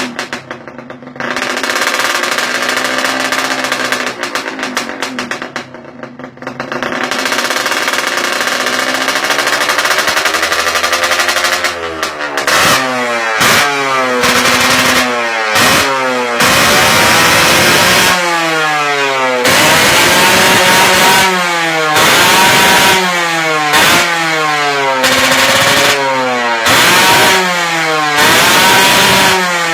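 Kawasaki Leo Star motorcycle engine and exhaust running, at first fairly steady with slow swells in pitch, then from about twelve seconds in revved over and over in quick blips, each rising and dropping back, roughly one every one to two seconds.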